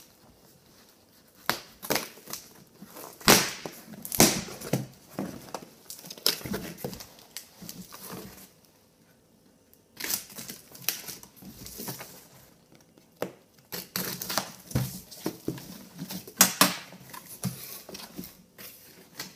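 Shipping box being unpacked by hand: cardboard and packing material crinkling, crumpling and tearing in quick irregular handling noises, in two spells with a short pause near the middle.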